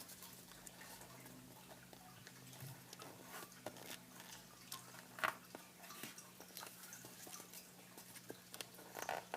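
A square sheet of paper being handled and folded by hand: soft scattered crinkles and rustles, with a sharper crackle about five seconds in and a few more near the end, over a faint steady low hum.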